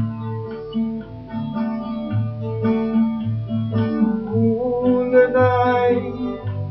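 Acoustic guitar strumming the chords of a Bengali bhatiali folk song in D, an instrumental passage between sung lines, with a wavering melody line rising over it about two-thirds of the way through.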